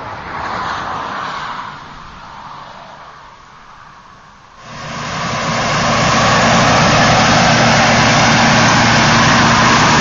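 Gleaner combine harvester running at a steady working pitch while cutting wheat: a dense engine-and-machinery drone with a steady low hum. It starts abruptly about halfway through, after a softer rushing hiss like wind over the grain.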